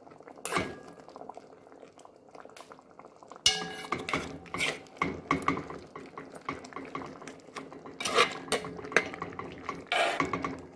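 Metal spoon clinking and scraping against a metal cooking pot as broth is spooned over fish, in irregular knocks that come thicker after a few seconds, some leaving a brief ringing tone.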